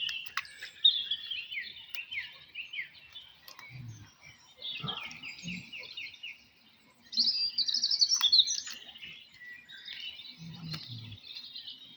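Small songbirds singing: a run of quick chirps and trilled phrases, busiest and loudest a little past the middle, with a few faint low sounds in between.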